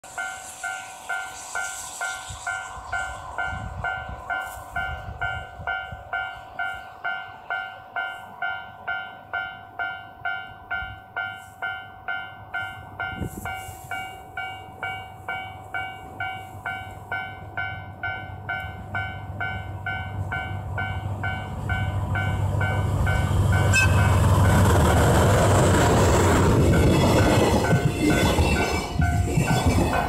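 Japanese level-crossing alarm bell clanging evenly, a little under two strikes a second. After about twenty seconds the rumble of a JR Freight DF200 diesel-electric freight locomotive builds and grows loud as it reaches the crossing, its horn sounding. Then loaded container wagons roll over the crossing.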